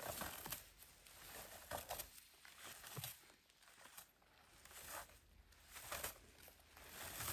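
Faint, irregular rustling and scraping of low blueberry bushes as a berry-picking scoop is raked through them.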